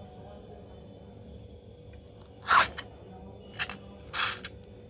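A slime-filled balloon being snipped open with scissors and its slime squeezed out: three short, sharp, noisy sounds about two and a half, three and a half and four seconds in, the first the loudest, over a low steady hum.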